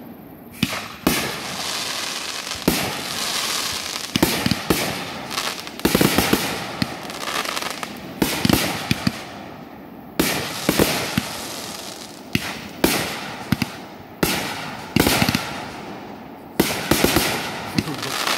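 Aerial fireworks bursting overhead: a string of sharp bangs, irregular, about one or two a second, with crackling and hissing between them.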